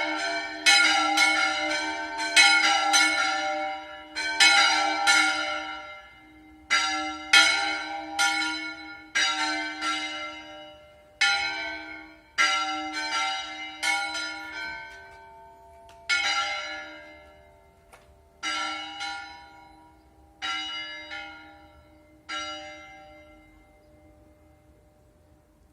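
Church bells ringing a repique: quick irregular strikes for the first fifteen seconds or so, then spacing out to about one every two seconds. The last strike comes about 22 seconds in and rings away.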